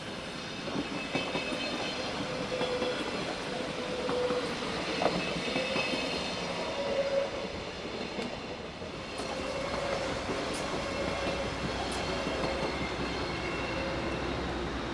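Thurbo GTW regional train rolling across the station's track field: its wheels rumble steadily and knock a few times over points and rail joints, with thin squealing tones above.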